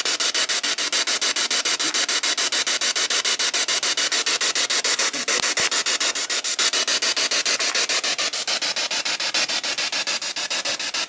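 Spirit box (a radio scanning rapidly through stations) played through a small JBL portable speaker: loud radio static chopped into an even, rapid stutter of about nine pulses a second as it sweeps. This is the sweep in which ghost hunters listen for a voice answering their question.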